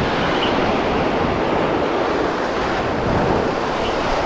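Surf breaking and washing over sea rocks, a steady loud rush, with wind buffeting the microphone.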